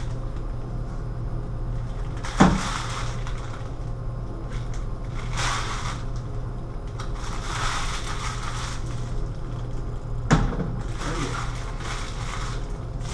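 Small clear plastic bag of hardware crinkling and rustling as it is handled and rummaged through, with two sharp knocks, about two seconds in and again about ten seconds in, over a steady low hum.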